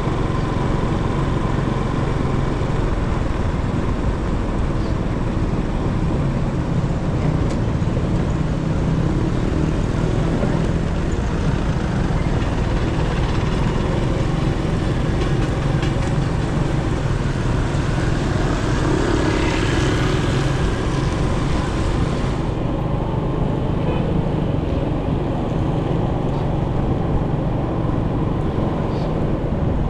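Steady vehicle and road-traffic noise heard from a moving vehicle, mostly a low rumble; the higher hiss over it drops away suddenly about three quarters of the way through.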